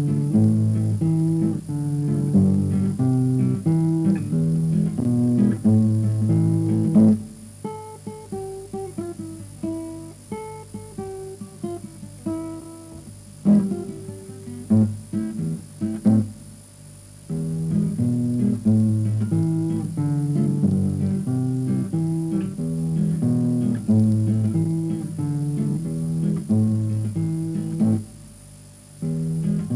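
Acoustic guitar playing: full strummed chords, then a quieter passage of single picked notes broken by a couple of hard strokes, then strummed chords again, with a short pause near the end.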